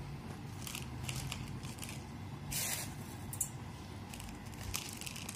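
Light rustling and crackling of crisp sev (fried gram-flour noodles) being sprinkled by hand onto filled puris on a plastic plate, in a few short scratchy bursts, the longest about halfway through, over a faint low hum.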